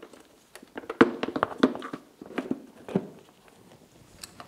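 Plastic engine cowling of a Mercury 20 HP four-stroke outboard being set down and pressed into place: a run of knocks and clatters about a second in, more around two and a half and three seconds in, and a couple of light clicks near the end.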